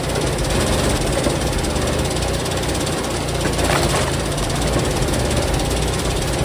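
Engine of a heavy wood-processing machine running steadily under load, with a couple of faint knocks about halfway through.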